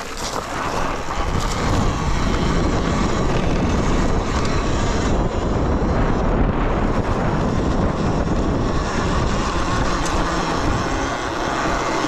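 Wind buffeting the microphone while riding a Talaria Sting electric dirt bike, building over the first couple of seconds and then staying steady.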